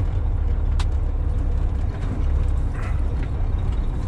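Heavy farm vehicle's engine running, heard from inside the cab as a steady low rumble, with a single sharp click about a second in.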